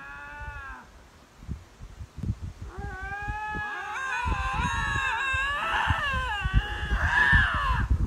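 Two lynx yowling at each other over territory: long, wavering howls that rise and fall in pitch. One call ends about a second in, and from about three seconds in a louder stretch of overlapping calls runs on, with irregular low thumps underneath.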